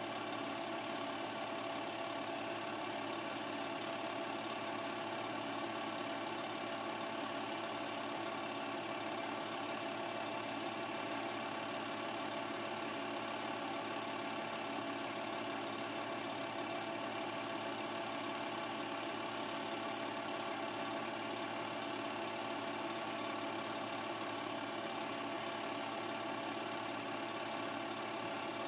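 Home-movie film projector running steadily: a constant mechanical whir that does not change in level or pitch.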